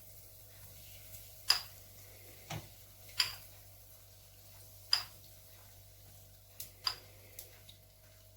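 Pancake batter just poured into hot sunflower oil in a frying pan, frying with sharp, irregular pops and ticks, about seven over several seconds.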